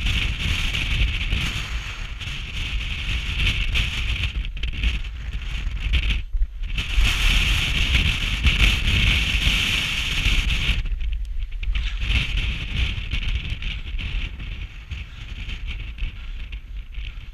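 Wind buffeting a body-worn camera's microphone: a steady, gusting rumble and rush with no tune or voice, dropping away briefly about six seconds in and again about eleven seconds in.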